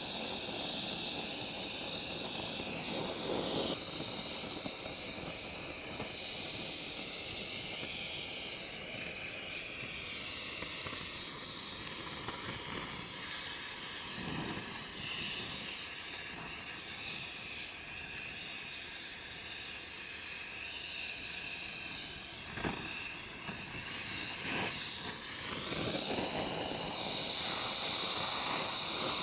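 Oxy-fuel torch flame hissing steadily as it is held on a crucible of molten copper to keep the edges from freezing while the copper is poured into an ingot mold. A couple of faint taps come near the end.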